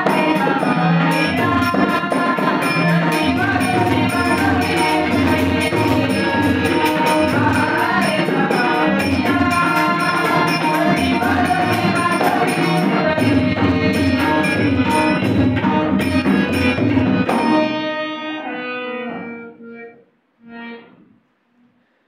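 Male voices singing a Marathi gaulan, backed by harmonium, tabla, a two-headed barrel drum and small jingling hand cymbals. The song ends a little past halfway, the instruments dying away within a second or two, with a few faint short sounds after.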